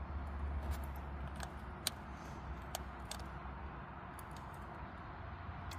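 Mazda 626 engine running with a steady low hum, with scattered sharp clicks over it. This is the mystery snapping noise, which the owner suspects comes from a worn ignition lead.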